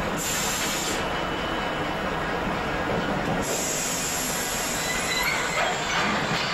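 Train running on rails, a steady rolling noise with a hiss coming and going and short wheel squeals in the last second or so.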